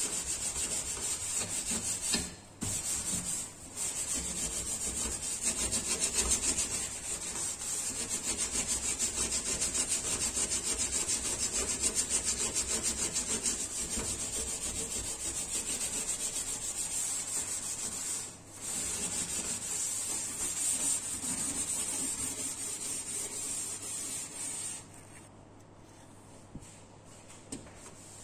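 Fast, steady scrubbing of a stainless steel gas stovetop with a scouring pad and cleaning paste, broken by a few short pauses. Near the end the scrubbing stops and gives way to softer wiping with a cloth.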